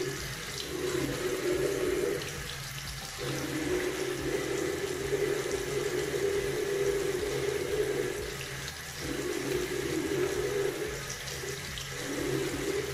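Water running from a bathroom tap into a sink and splashing over a pair of sunglasses held in the stream. The splashing changes a few times as the glasses are moved in the stream.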